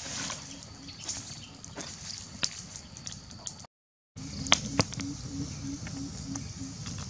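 Wood fire crackling with scattered sharp pops over steady outdoor background. The sound drops out briefly just before the middle. After the gap a low pulsing, about three beats a second, runs under the crackle.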